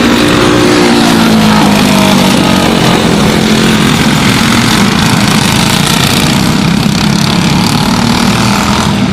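Several racing karts with Briggs & Stratton Animal four-stroke engines running at speed, their overlapping engine notes dropping in pitch over the first couple of seconds, then holding fairly steady.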